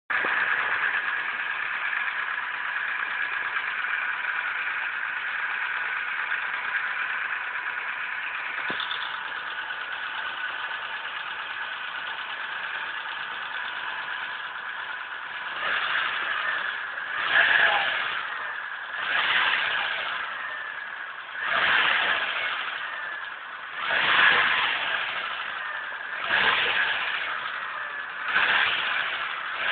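Mitsubishi 4G63 2.0-litre four-cylinder engine idling steadily, then revved in short blips about every two seconds from around halfway, with the engine knock that the owner is demonstrating.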